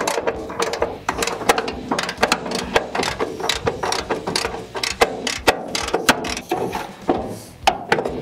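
Hand ratchet wrench clicking in quick, irregular runs of several clicks a second as a bolt in a car's front suspension is turned, with a short pause near the end.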